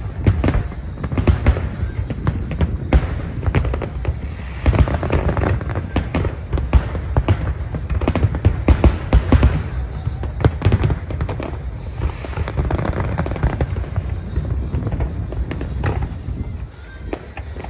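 Fireworks shells bursting in a rapid, dense string of sharp bangs and booms over a continuous low rumble and crackle, thinning out near the end.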